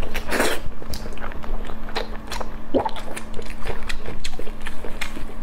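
Close-miked mouth sounds of someone chewing soft, fatty braised pork belly: a steady run of wet smacks and sticky clicks. There is a short breathy hiss about half a second in.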